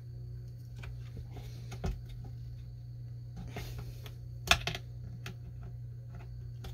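Scattered small clicks and taps of needle-nose pliers and chain brake parts being worked into a Stihl chainsaw's plastic housing, with one sharper click about four and a half seconds in. A steady low hum runs underneath.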